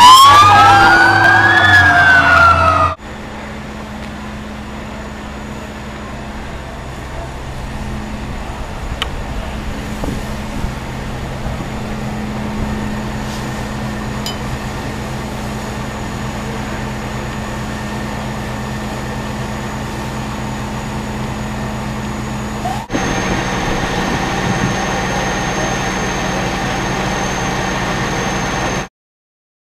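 A loud fire engine siren wailing up and down for about the first three seconds. Then the fire engine's engine runs with a steady low hum, a little louder after about 23 seconds.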